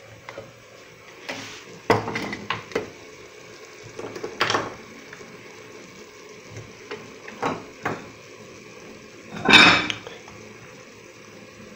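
Kitchen dishes being handled: a metal bowl and a glass lid clinking and knocking against the counter a handful of times, the loudest knock about three-quarters of the way through.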